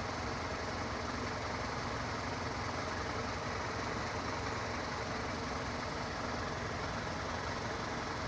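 A vehicle engine idling steadily, a constant low running noise with no change.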